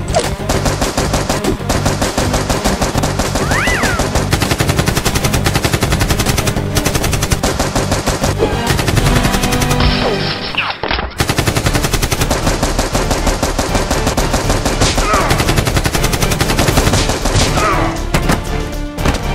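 Rapid automatic gunfire sound effects over an action music track, with a brief break a little after ten seconds in.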